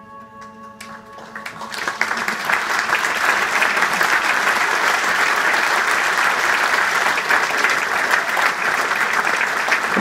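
A held final musical chord fades out in the first second, then audience applause swells up and goes on steadily.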